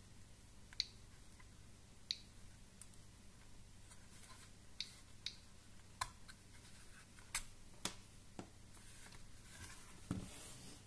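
Homemade Geiger counter clicking at random, irregular intervals as it registers counts, about one click a second. Hands rustle against the plastic case near the end, with a soft thud.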